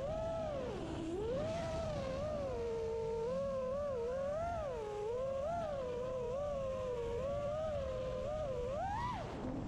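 FPV racing drone's motors and propellers whining, the pitch rising and falling constantly with the throttle. It dips about a second in and climbs sharply near the end.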